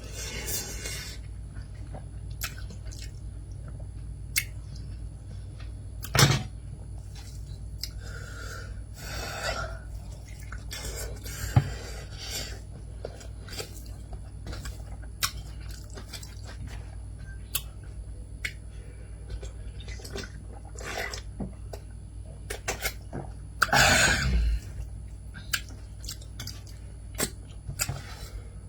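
Close-up eating sounds: chewing with many small clicks and smacks, and a few longer, louder mouth noises, the loudest about four seconds before the end, over a steady low hum.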